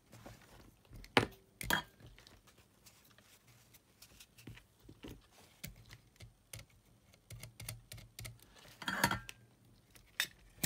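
Small clicks and taps from hands handling an opened cassette Walkman's plastic and metal parts and tools, with two sharp clicks about a second in and a brief rustling clatter near the end.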